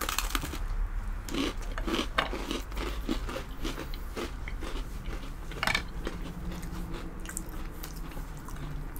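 Two people biting into chocolate sandwich cookies, Oreo and a store-brand copy, and chewing them. The bites make crisp crunches right at the start, followed by scattered crunching as they chew.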